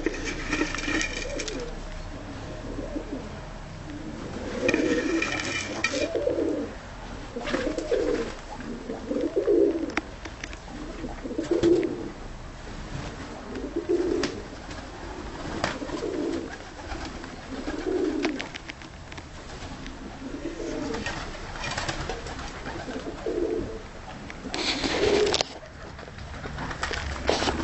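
Dönek (Turkish roller) pigeons cooing, low coos repeating about every two seconds, with a few brief noisy bursts among them.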